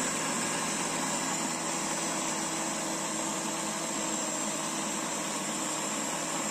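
Imarflex countertop blender running steadily at speed 1, blending milk with crushed ice and buko pandan powder.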